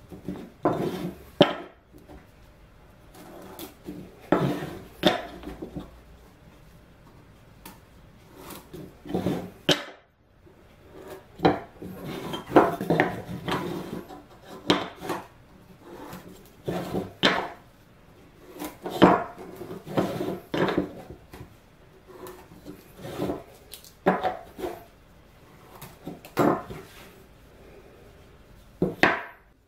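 Small plywood squares and a disc template handled on a wooden workbench: irregular knocks, taps and short scrapes as the pieces are set down, slid and picked up.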